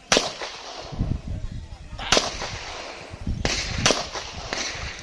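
Four pistol shots fired at range targets: one at the very start, one about two seconds in, and two close together about three and a half seconds in.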